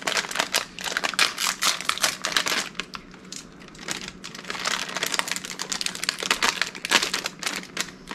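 A plastic snack bag of Takis Hot Nuts crinkling as it is bitten and torn open and handled, in dense bursts that ease off about three seconds in and then pick up again.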